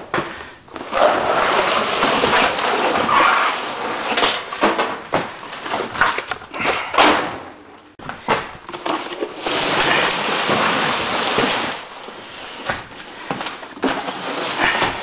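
Broken drywall sheets being scraped up off the floor and handled: rustling, scraping and crumbling gypsum with scattered knocks, in two long stretches with a brief lull about halfway through.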